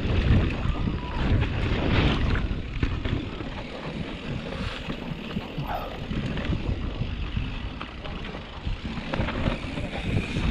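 Wind buffeting the microphone: a gusty, uneven low rumble with a faint hiss above it.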